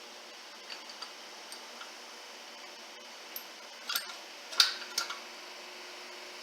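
Steel pieces of a wheel bearing press-and-pull tool kit, its pucks and washers, clinking as they are handled and fitted together: a few light clicks, then sharper, louder metal clinks about four and five seconds in.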